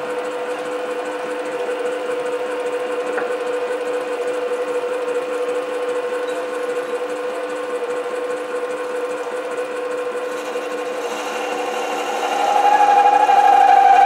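SC2 mini lathe running with a steady motor whine. About twelve seconds in it gets louder and a strong high ringing tone joins as the parting-off tool starts cutting into 316 stainless steel.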